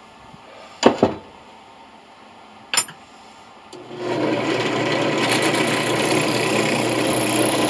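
A few sharp knocks, then an electric drill starts a little past halfway and runs steadily with a grinding sound, boring into a brass coin.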